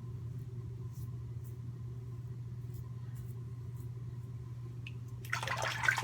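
A steady low hum with a few faint ticks, then about five seconds in a bathroom tap is turned on and water runs noisily into the sink.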